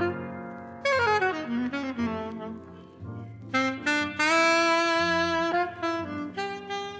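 Jazz saxophone playing a slow ballad solo on an old live recording. A phrase falls in pitch about a second in, and after a short pause a rising phrase ends in a long held note.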